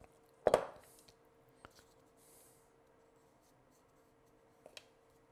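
A stainless steel mixing bowl handled on a kitchen counter: one sharp knock about half a second in, then a few faint clicks and taps.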